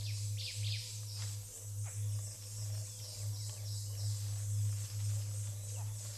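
Forest ambience from a wildlife documentary's soundtrack: birds giving short downward-sweeping chirps over a steady high insect drone, with a constant low hum underneath.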